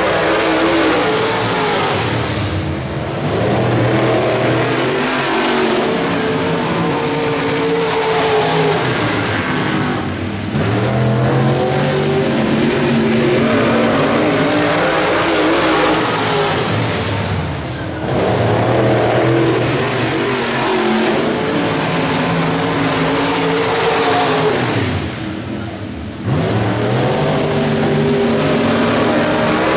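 Dirt late model race cars' V8 engines running hard around a dirt oval, the engine pitch climbing and falling in a repeating cycle as the cars lap, with a brief drop in loudness about every seven or eight seconds as they go through the turns.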